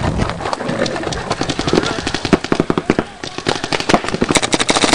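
Paintball markers firing rapid strings of sharp pops, at times about ten shots a second, with a short lull about three seconds in.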